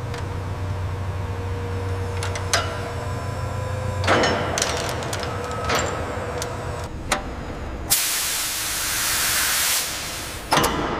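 Industrial machinery with a low steady hum and scattered metallic clanks, then a loud burst of hissing, like pressure being released, lasting about two seconds near the end.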